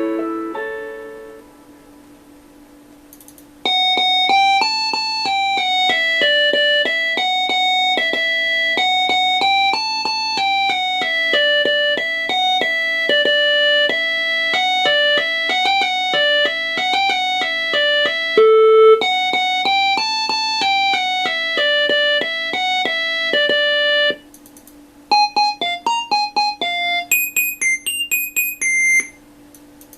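Nokia 3585 ringtones played as MIDI through a Sound Blaster Live! sound card with the Mobile60 soundfont, in a piano-like voice. One tune fades out at the start. From about four seconds in, a fast repeating melody plays for about twenty seconds, then a short run of high, quick notes comes near the end. A faint steady hum runs underneath.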